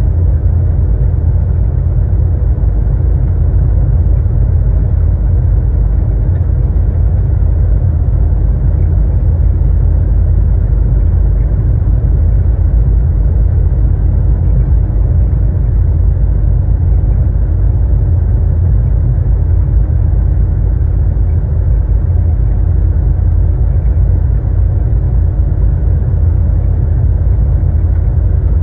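Steady low drone of engine and road noise inside a truck's cab cruising at highway speed, unchanging throughout.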